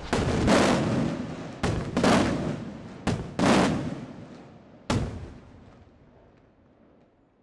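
Aerial firework shells bursting overhead: about seven sharp reports over five seconds, several in quick pairs, each followed by a long rolling echo. The echo fades away after the last burst, about five seconds in.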